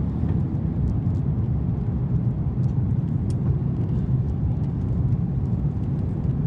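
Airbus A330-200 cabin noise heard from a passenger seat: a steady low rumble of engines and airflow, with a few faint clicks over it.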